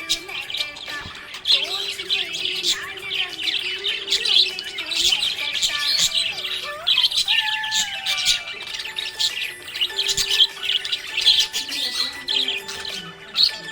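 Budgerigars chirping and warbling continuously in a rapid, busy stream of short high chirps and trills.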